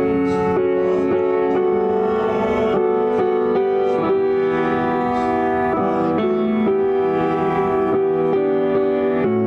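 Instrumental hymn accompaniment: piano with held chords changing about once a second, playing back from a recording because the church pianist is absent.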